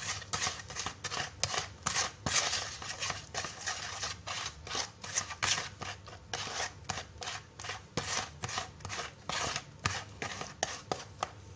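White plastic spoon stirring fish-bait mix of egg yolk and feed pellets around a plastic basin, scraping the gritty pellets against the basin's side in quick repeated strokes, about three a second.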